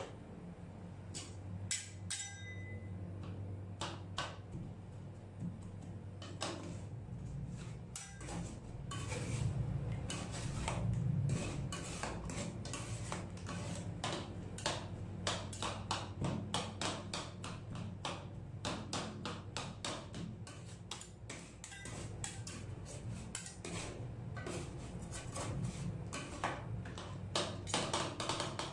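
Metal spatula blades chopping and scraping on a metal cold plate as kiwi slices are chopped into the ice-cream base: rapid clicking taps, sparse at first, then fast and dense from about eight seconds in. A low steady hum runs underneath.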